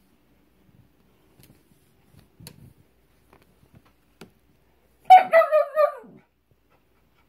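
Dog giving a quick run of short, high-pitched whines and yips about five seconds in, excited by a cat hiding under a rug. Before that there is faint scuffing as its paws and nose work at the rug.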